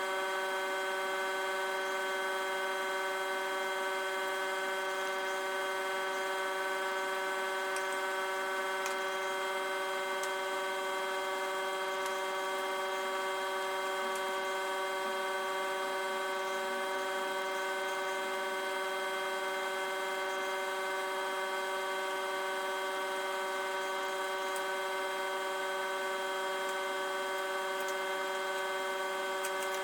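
Small CNC router running with a steady, unchanging whine.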